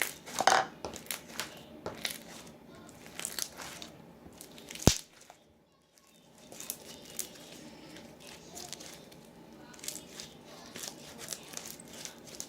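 Crunchy butter slime with fake snow mixed in, squeezed and stretched by hand, giving irregular crackles and pops, with one sharp loud pop about five seconds in.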